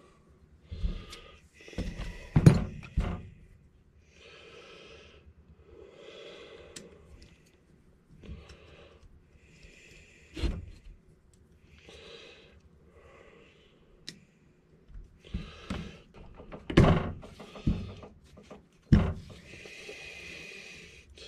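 Hand tools knocking and thunking against the metal of a Poulan 245A chainsaw while a stuck bearing is being worked off. There are scattered knocks, the loudest about two and a half seconds in and several more near the end, with quieter scraping and shuffling between them.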